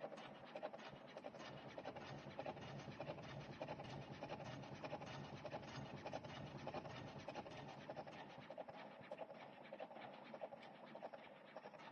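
Electric cigarette tube-filling machine (Slim E30) running, with a steady fast rattle of clicks and scratching.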